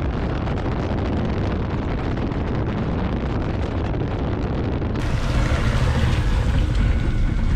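Steady road and wind rumble of a car driving, with wind buffeting the microphone. The sound changes suddenly about five seconds in, and faint steady tones come in over the rumble.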